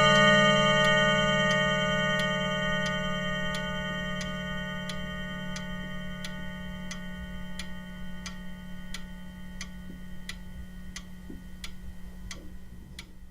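Pendulum clock ticking evenly, about one and a half ticks a second, while the ringing of a chime struck just before slowly dies away under it.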